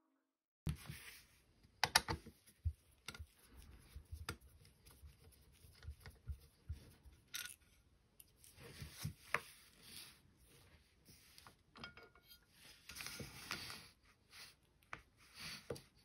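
Faint clicks, taps and scrapes of hands taking apart a mortise door lock, handling the lock case and lifting off its steel cover plate. The sounds come irregularly, with a few sharper clicks among softer rubbing.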